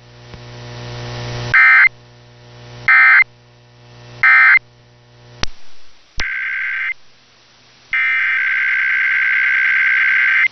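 Emergency Alert System SAME data tones: three short, identical warbling digital bursts about a second and a half apart, the end-of-message code that closes the test alert. Two sharp clicks follow, then a short burst and a longer one of the same data tones, with a low hum and a swelling hiss between the bursts.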